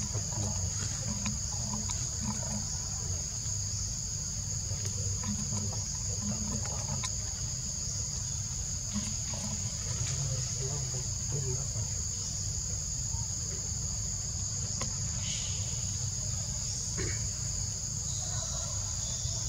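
Insect chorus: a steady, high-pitched buzz that holds unbroken, over a low steady rumble.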